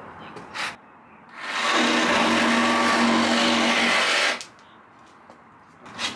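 An electric power tool's motor runs for about three seconds with a steady whine, starting and stopping abruptly, while plywood subfloor pieces are cut and trimmed to fit. A single knock comes just before it.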